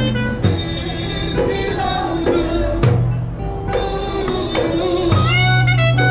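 Music: a bending melodic line, voice-like, over long held bass notes, with some light percussion.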